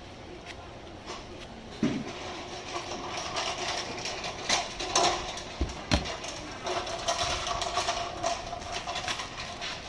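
A large cleaver-style knife slices the rind off a pineapple held in the hand, making scraping cuts broken by a few sharp knocks. Near the end a thin plastic bag crinkles.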